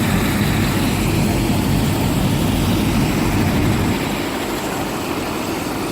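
Helicopter engine and rotor noise, a steady dense rumble with a hiss over it, easing slightly about four seconds in.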